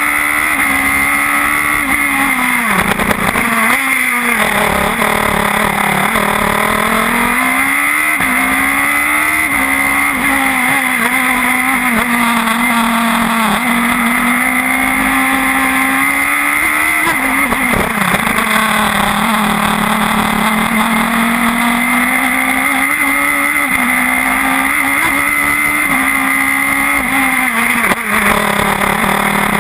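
Radical SR4 racing car's engine heard from on board at speed, its pitch climbing and falling as the car accelerates and slows, with sharp drops in revs about 3 seconds in and again about 17 seconds in.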